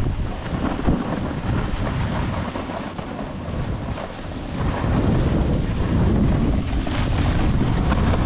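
Wind rushing over the camera microphone at riding speed, with the hiss of a snowboard sliding on groomed snow. The rush eases around the middle and builds again from about halfway on.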